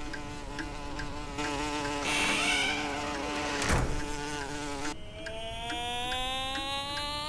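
Cartoon bee buzzing in flight: a steady droning hum whose pitch slides down and back up as it flies past. A short sharp click comes about three and a half seconds in.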